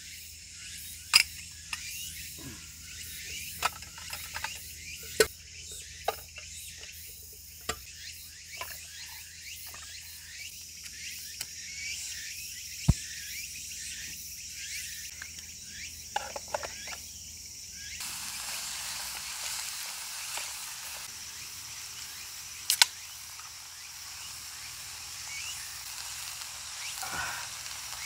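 Insects droning steadily, with scattered sharp clicks and knocks of things being handled. About eighteen seconds in, the sound changes abruptly to a fuller, steady hiss.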